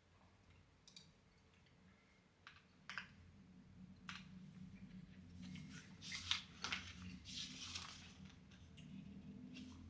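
Faint, scattered small clicks and soft rustles of things being handled at a desk, over a low steady hum, in a pause between bursts of typing.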